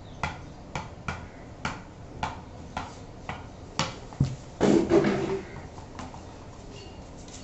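A ball bounced again and again on a flat wooden bat, a sharp tap about twice a second, eight taps in all. The rally breaks off about four seconds in with a thud, then a louder, longer noise.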